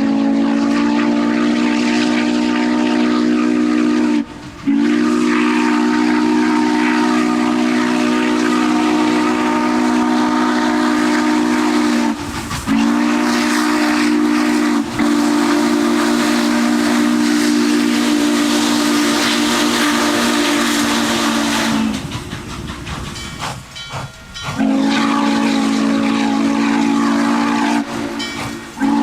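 Multi-chime steam locomotive whistle sounding a low chord in long blasts: four of them, lasting from about four to nine seconds each, with brief breaks between, and another blast starting right at the end.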